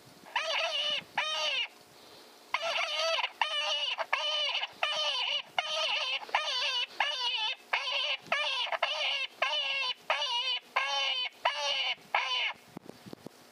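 Electronic predator caller playing an animal cry over and over: two cries, a short pause, then about a dozen more at a steady, even rhythm, each under a second long.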